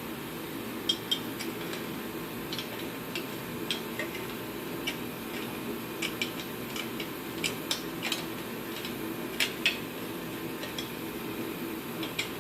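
Irregular light metallic clicks and clinks of hand tools and small metal parts being handled, about two dozen scattered ticks, over a steady low background hum.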